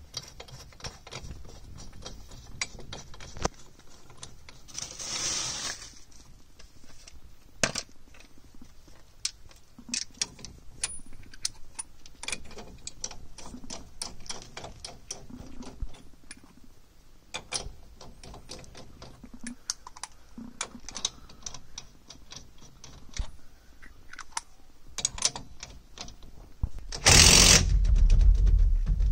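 Socket wrench ratcheting and clicking as lug nuts are run down onto the studs of a bolt-on wheel spacer, in many short, uneven clicks. A loud rush of noise comes near the end.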